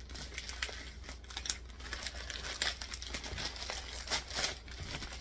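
Plastic poly mailer bag crinkling as it is pulled and torn open by hand, with many sharp crackles.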